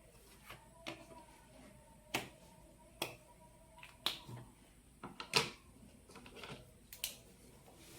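Light, irregular clicks and taps, about a dozen, from small stationery being handled on a desk, the loudest a little past halfway.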